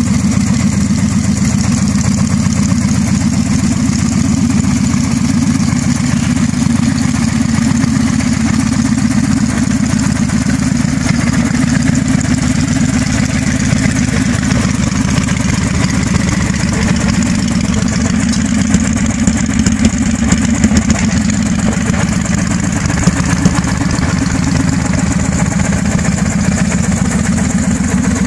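Victory Hammer 8 Ball's V-twin idling steadily through a Stage 1 tune and an aftermarket swept exhaust ("pot swept"). A few brief louder moments come a little past the middle.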